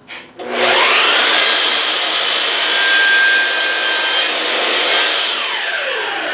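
Compound miter saw starting with a rising whine, running at full speed as its blade cuts through a piece of crown molding, then winding down with a falling whine after the trigger is released near the end.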